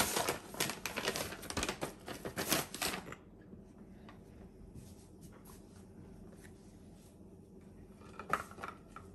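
Paper flour bag crinkling and rustling as it is handled for about three seconds, then quieter scattered handling sounds, with a brief rustle again near the end.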